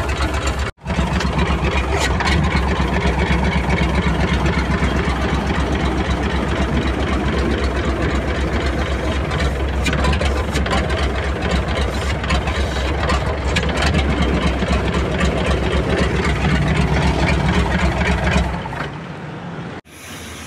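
Six-cylinder inline diesel truck engine running steadily at idle with rapid, even firing pulses. Near the end the sound falls away.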